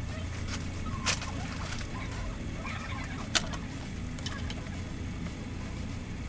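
Steady low room hum with light handling noises: a sharp click about a second in and another at about three and a half seconds, with a few softer ticks between. A few faint, short, high-pitched beeps come near the end.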